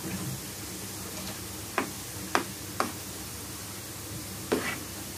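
Besan-coated peanuts deep-frying in hot oil in a pan: a steady sizzle, with four sharp clicks, three close together in the middle and one near the end.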